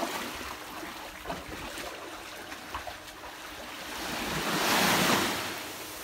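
Shallow sea surf washing on a sandy beach, with a louder rush of a wave coming in near the end.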